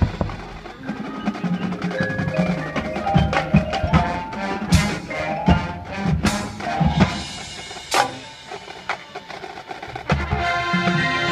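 Marching band percussion passage: drums and front-ensemble mallet instruments (marimba, bells) playing a rhythmic run of sharp struck notes, with a fuller, louder band sound coming in near the end.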